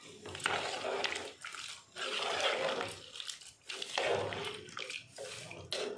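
A spoon stirring thick chicken curry in an aluminium pot, giving a series of scraping, sloshing strokes about a second apart.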